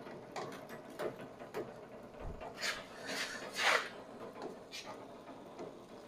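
Home-built power feed on a Frontier OS27 sawmill running at low speed: an electric wheelchair motor drives the sawmill head along its track by roller chain over sprockets and idler pulleys. The chain gives faint, regular clicking, with a few brief rustling swishes in the middle.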